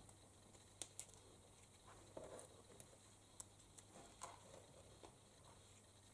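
Near silence with a few faint taps and a soft rustle of fingers handling small paper bows and twine on a card on a cutting mat, mostly in the first four seconds.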